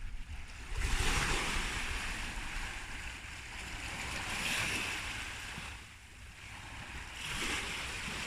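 Sea water rushing and washing in three swells of hiss, with wind rumbling on the microphone.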